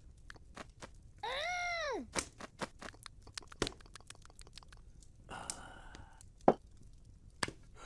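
A cartoon cat character makes a short vocal sound that rises and then falls in pitch about a second in. Scattered sharp crackles of a log fire run under it, with a breathy sound about five seconds in and a louder click a little later.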